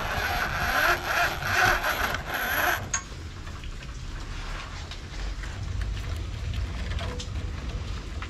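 Steel wire rope being pulled through a pulley and along the hull, a loud rasping scrape for about three seconds that stops suddenly with a click. After that, faint clicks of the wire rope and its fittings being handled over a low rumble.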